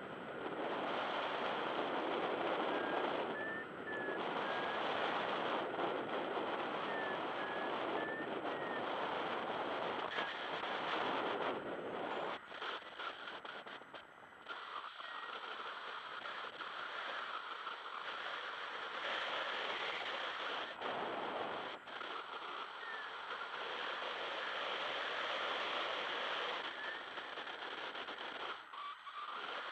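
Airflow rushing over the microphone of a paraglider pilot's camera in flight: a steady hiss that drops away briefly a few times.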